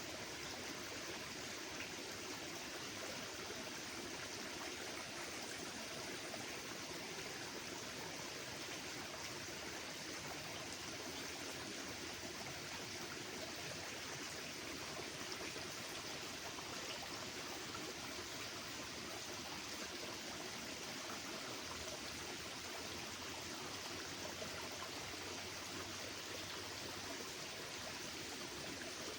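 Steady rushing hiss like running water, even and unchanging throughout, with no bird calls standing out.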